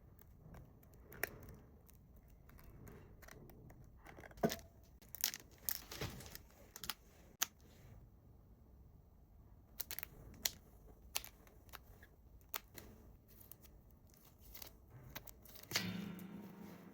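Paper and plastic packaging of a stationery order being handled and torn open by hand: rustling, crinkling and tearing, with scattered sharp taps and clicks. A brief buzzy tone about a second long comes near the end.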